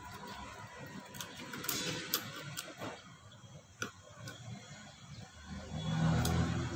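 Light metallic clicks and ticks, irregularly spaced, as a screwdriver and a thin metal strip are worked against a car A/C compressor's clutch plate and pulley, with a brief low hum about six seconds in.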